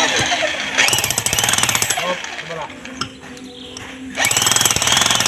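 Corded electric demolition hammer hammering in two bursts: one from about a second in, lasting just over a second, and another starting about four seconds in.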